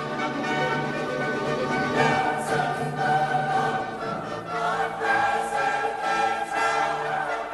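A choir singing sustained notes with orchestral accompaniment, in the manner of a sacred cantata.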